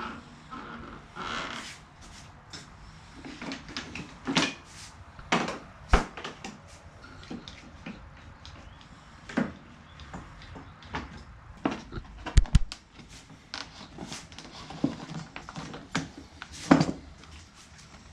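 One-handed bar clamps being handled, squeezed and set to bend a steamed wooden trim board over a form: scattered sharp clicks and knocks of clamp and wood, with a quick run of clicks about two-thirds of the way through.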